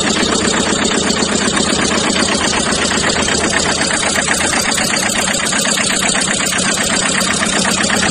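Small electric motor running steadily with a hum and a fast, even rattle.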